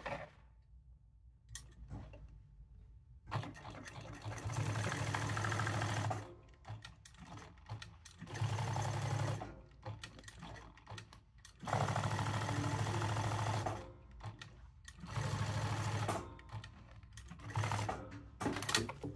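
Jack S5 industrial sewing machine stitching a leather patch onto a hat, running in several bursts of about one to three seconds with short stops between them as the hat is turned under the needle. Small handling clicks fall in the pauses.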